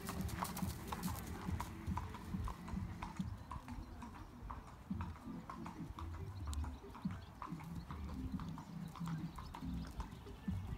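A horse's hoofbeats on a sand arena, a steady run of short clicks as it moves at a trot.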